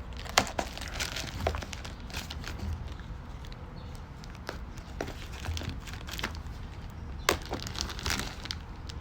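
Packaging being opened by hand: crinkling, rustling wrapping with scattered sharp clicks, one loud click about half a second in.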